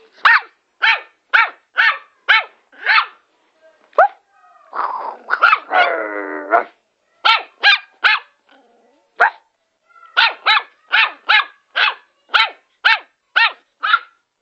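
Small Yorkshire terrier barking sharply in quick runs of about two barks a second, with a short break around the middle filled by a rougher, drawn-out sound.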